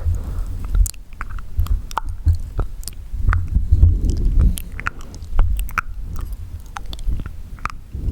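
Wet mouth sounds close to the microphone: irregular sharp tongue and lip clicks and smacks over a low, thudding rumble.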